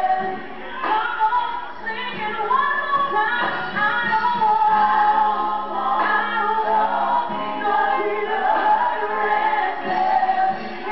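Female gospel vocal group singing in harmony into microphones, several women's voices gliding between and holding notes.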